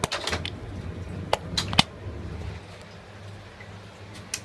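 KDK ceiling exhaust fan (about 10-inch blade) running with a steady low hum. Several sharp clicks come in the first two seconds, the loudest just before the two-second mark, and one more comes near the end.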